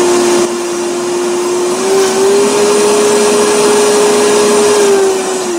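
Vitamix blender running at speed on a thick mixture of frozen bananas and cocoa powder, a loud steady motor whine whose pitch rises a little about two seconds in, then winds down as it is switched off near the end.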